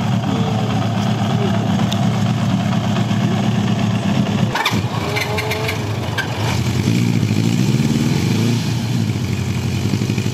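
Air-cooled inline-four Honda CB motorcycle engines idling steadily, with the revs rising and falling briefly about two-thirds of the way through.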